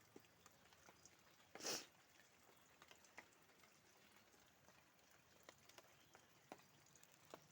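Near silence with faint scattered ticks and one short, brief burst of rustling noise just under two seconds in.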